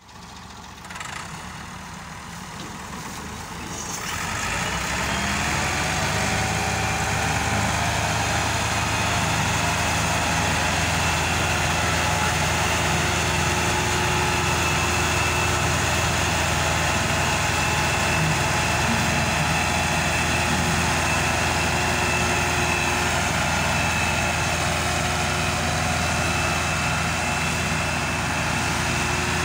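Massey Ferguson 260 tractor's three-cylinder diesel engine running steadily as it hauls a trolley loaded with sugarcane. The engine is quieter for the first few seconds, then grows louder about four seconds in and holds steady.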